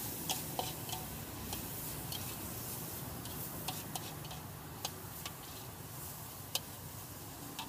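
Metal ladle clinking and scraping against a steel wok while stir-frying noodles and greens: a dozen or so irregular sharp clicks over a steady background hiss.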